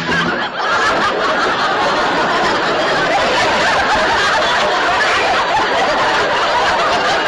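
Studio audience laughing loudly in one long, unbroken laugh that holds steady for several seconds.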